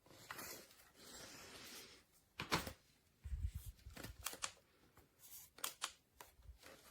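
Objects being handled: rustling for a couple of seconds, then a scattering of sharp clicks and a few low bumps.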